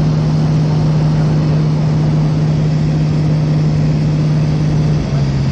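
Single-engine Cessna's piston engine and propeller drone, heard inside the cabin, running steadily at one pitch. Its pitch steps down slightly about five seconds in as the power comes back.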